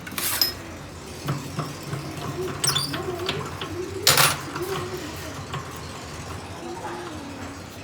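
Metal tools and pump parts clinking and knocking on a workbench: a few sharp metallic strikes, the loudest about four seconds in, over a low steady hum, with faint voices in the background.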